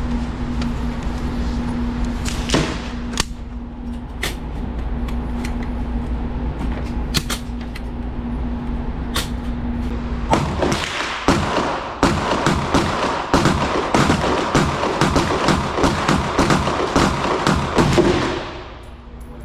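Pistol shots from a .45 ACP Glock 30: a few scattered cracks over a steady low hum, then just past the middle a fast string of shots, about three a second, that stops near the end.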